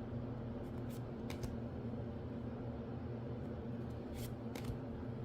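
Magic: The Gathering cards being handled and flipped through, giving a few faint short clicks, twice about a second in and twice about four seconds in, over a steady low hum.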